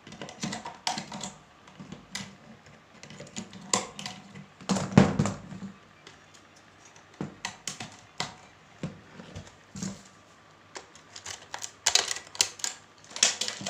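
Hard plastic cabinet parts clicking and knocking as they are handled, with a utility knife scraping at a burr that keeps a part from fitting. An irregular run of clicks and taps, the loudest knock about five seconds in and a busier patch of clicks near the end.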